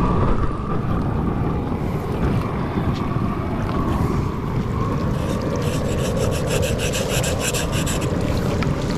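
Shallow mountain stream rushing close by. About halfway through, a knife starts scraping the fur off a marmot carcass held in the water, in quick repeated strokes.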